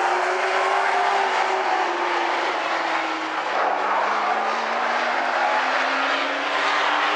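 Vintage modified race cars running at racing speed on the track, several engines at once with a steady noise. Their pitch rises slowly through the second half.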